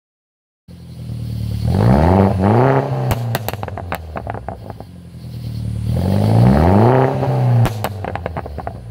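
Turbocharged Mini Cooper's 1.6-litre four-cylinder revved hard twice. Each time the engine note climbs and holds, then a quick string of exhaust pops and crackles follows as the throttle closes.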